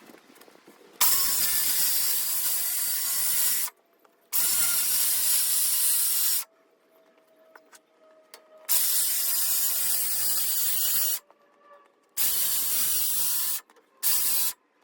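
Power saw cutting a plywood backboard, running in five bursts of one to three seconds each that start and stop abruptly, with short quiet gaps between them.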